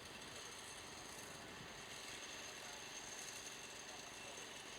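Machinery running steadily, heard as a low rumble with a fast, even flutter.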